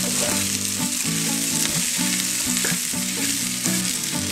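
Wooden spatula stirring and scraping spiced potato and pea samosa filling around a frying pan, with the oil sizzling steadily underneath.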